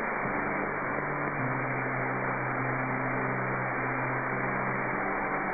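Helicopter engine and rotor noise heard through the cockpit intercom: a steady hiss with several low steady hums, one of them growing stronger about a second and a half in.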